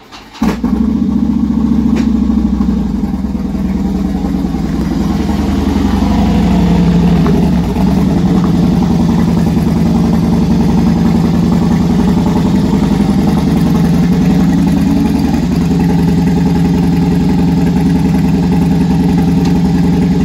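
Loud motorcycle engine running steadily at low revs as the bike rolls in slowly and stops. The sound starts abruptly about half a second in.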